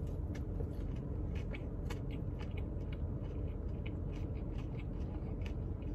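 A person chewing a bite of a breaded chicken biscuit: a run of small crisp clicks and mouth noises over a steady low hum.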